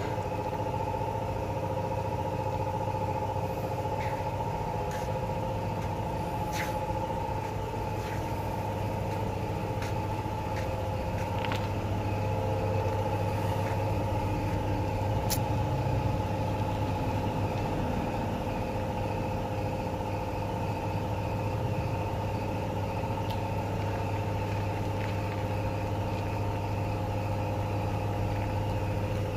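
Car engine idling steadily, with a few sharp clicks over it.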